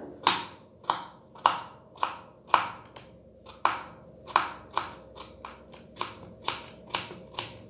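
Kitchen knife slicing a raw potato on a wooden cutting board, making thin cuts close together: a sharp crisp cut sound about twice a second.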